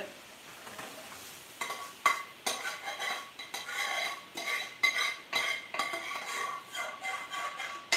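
Curry being scraped out of an aluminium frying pan into a foil tray: a metal utensil knocks and scrapes against the pan again and again, and the pan rings after the harder knocks.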